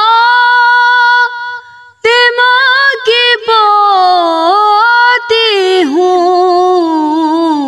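A woman's voice singing a noha, a Shia lament: long held, ornamented notes that waver and bend in pitch, with short breaks for breath between phrases.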